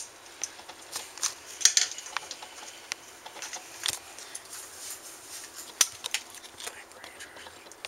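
Plastic shell of a wireless Xbox 360 controller being pulled apart by hand: scattered clicks and small snaps of the plastic halves and clips separating, two of them sharper than the rest.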